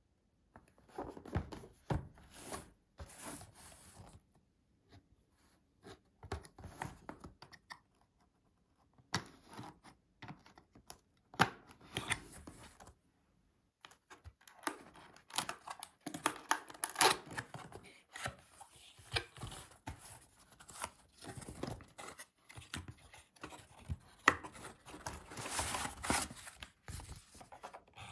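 A cardboard product box being handled and opened by hand: irregular scraping, rustling and sharp taps of cardboard flaps, paper and plastic packing, broken by a few short pauses.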